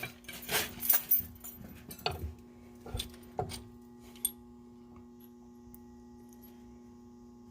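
Metal tools and steel suspension parts clinking and knocking together as they are worked by hand, a dozen or so irregular clicks and clanks that stop about four seconds in. A faint steady hum remains afterwards.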